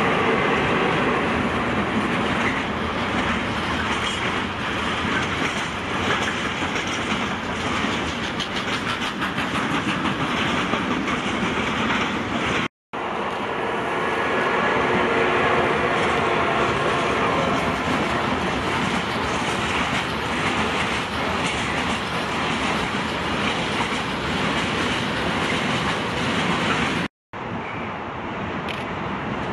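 Electric freight trains passing close by: a steady loud rumble and clatter of wagon wheels over the rails and points. The sound drops out briefly twice, about halfway through and near the end.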